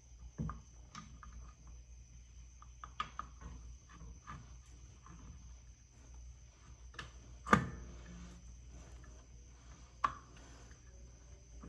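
Light clicks and clinks of metal drum brake parts being handled and fitted onto the rear axle housing, with a louder knock about seven and a half seconds in and another about ten seconds in. A faint steady high-pitched tone runs underneath.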